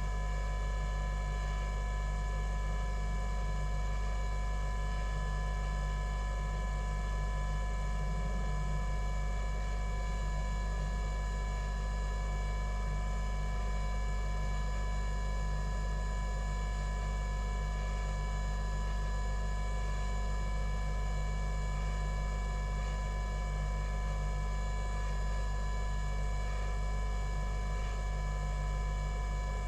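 Hot-air rework station blowing steadily, heating solder on a circuit board, with a constant electrical hum and a few steady tones.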